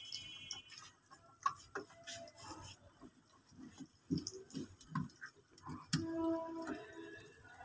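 Scattered small clicks and ticks of a screwdriver working terminal screws and wire lugs in a control panel, with light taps as wires are handled.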